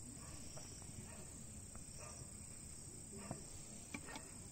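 Quiet background with a steady, faint, high cricket trill, and two soft taps about three and four seconds in as folded samosas are set down on a steel plate.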